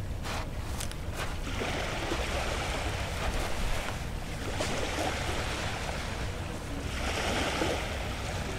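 Sea waves washing onto a sandy beach, swelling louder twice, over a steady low rumble of wind on the microphone. A few soft ticks in the first second or so.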